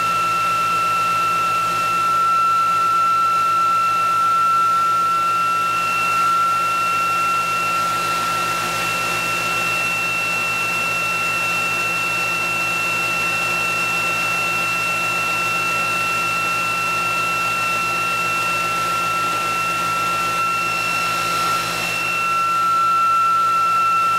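Bench-top DC motor and generator rig spinning at steady speed above 3,300 RPM with the generator on load and charging a battery. It makes a steady high whine with a second, higher tone over an even mechanical hum.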